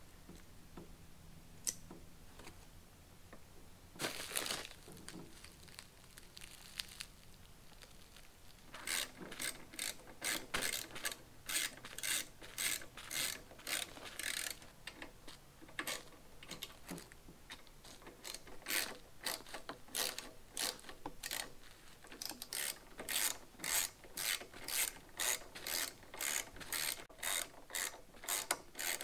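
Hand ratchet clicking in short, even strokes, about two a second, starting about a third of the way in, as the handlebar clamp bolts are run down. Before that, a few seconds of plastic wrap crinkling.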